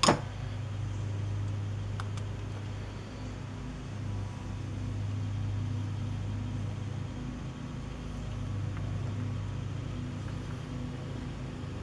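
A steady low mechanical hum, with a sharp click at the very start and a fainter click about two seconds in.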